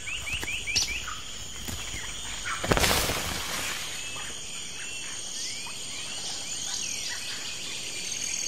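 Rainforest ambience: a steady high insect buzz with scattered short bird chirps, a quick run of them at the start. A loud harsh burst, lasting about half a second, comes about three seconds in.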